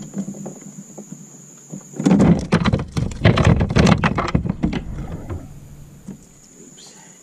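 A faint steady drone of insects, then about two seconds in a loud run of knocks and rattles lasting some three seconds, from a fish and tackle being handled on a plastic fishing kayak.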